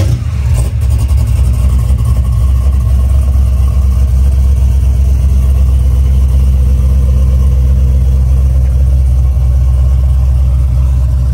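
Box Chevy's swapped ZL1 supercharged V8 idling just after start-up: a loud, steady, deep rumble with a brief flare in the first second.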